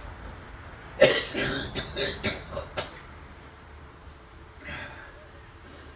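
A man coughing several times in a row, a sharp first cough about a second in followed by a few shorter ones, then a fainter cough or throat-clear near the end.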